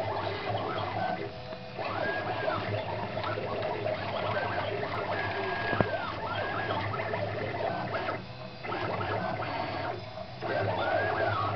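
Stepper motors of a homemade CNC gantry driving its axes through ball screws, a whine that rises and falls in pitch as each move speeds up and slows down. It breaks off briefly three times, between moves.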